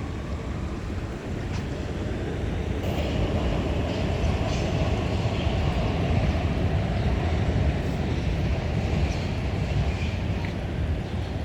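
A vehicle passing by: a steady low rumble that swells about three seconds in, carrying a faint whine, then eases slightly near the end.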